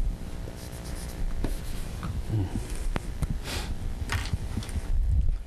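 Dry-erase marker drawing short strokes on a whiteboard, with a few sharp clicks and light knocks among them.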